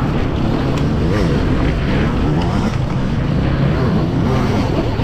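Electric dirt bike's QS138 brushless motor whining under way, its pitch rising and falling as the throttle changes, over steady riding noise.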